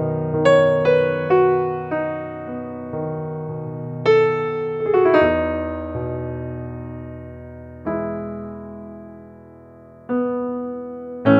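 Background music: a piano playing slow single notes and chords, each struck and left to fade.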